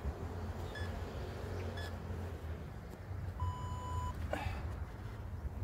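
Interval workout timer beeping: two short beeps a second apart, then a longer, lower beep about three and a half seconds in that signals the start of the set. A steady low wind rumble on the microphone runs underneath.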